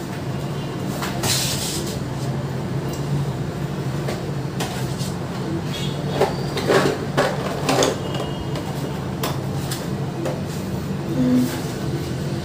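Kitchen utensils and containers being handled: scattered clicks and knocks, over a steady low hum.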